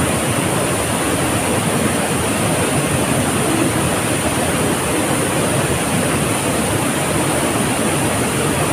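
Waterfall's steady rush of falling water, even and unbroken.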